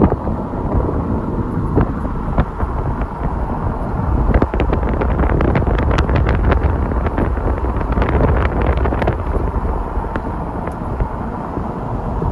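A car driving along a narrow road: steady low road and tyre rumble, with wind buffeting the microphone. Many short crackles and ticks come through the middle stretch.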